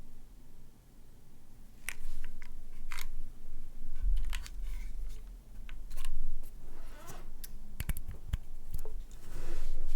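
Scattered key clacks on a brass-plate, gasket-mounted Iron180 mechanical keyboard with stock Gateron Box Ink Black linear switches and GMK keycaps. The keystrokes come one at a time rather than as steady typing, with a low thump about four seconds in and two brief rubbing sounds in the second half.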